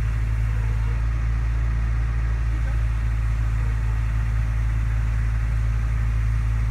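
Engine of a JCB mini digger running steadily, a constant low drone while the boom and bucket are worked.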